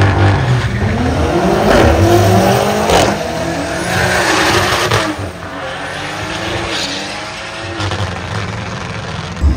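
Two BMW M cars launching off a drag-strip start line. Their engines climb in pitch through the gears with quick upshifts, then fade as the cars pull away down the strip about halfway through.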